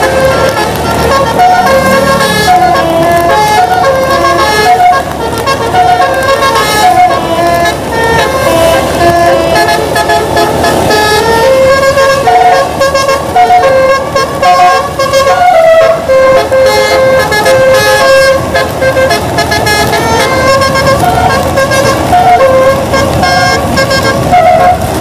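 Bus telolet musical air horn playing a continuous tune, its notes stepping up and down in pitch one after another.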